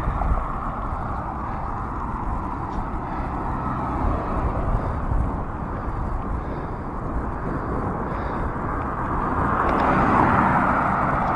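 Wind buffeting the microphone of a camera on a moving bicycle, a steady low rumble with road noise; a hiss swells about nine seconds in.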